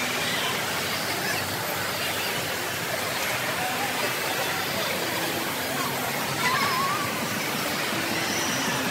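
The steady din of a large indoor water park: an even rush like falling water under the hubbub of a crowd echoing beneath the dome, with scattered faint voices and one voice briefly louder about six and a half seconds in.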